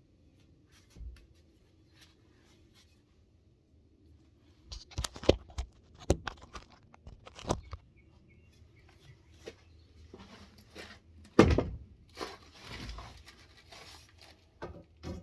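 Scattered knocks and clicks of tools and pipe fittings being handled, with the loudest knock about eleven seconds in, followed by a brief rustle.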